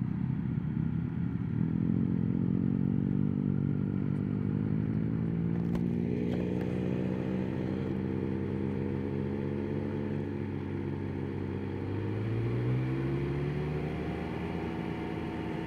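Motorcycle engine running at low road speed, heard through a microphone inside the rider's helmet; its note rises and falls gently, with a brief rise in revs about twelve seconds in.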